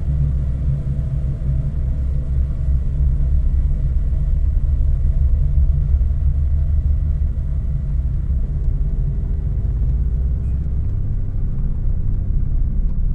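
Experimental ambient track: a loud, steady, low rumbling drone with faint held tones above it. A new sustained tone enters about two-thirds of the way through.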